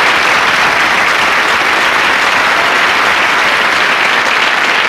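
Audience applauding steadily and loudly at the end of a song-and-dance number.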